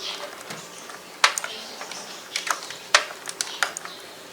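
Irregular sharp clicks and taps of a SATA cable being worked into a hard drive's connector inside a desktop PC case. The two loudest clicks come about a second in and about three seconds in.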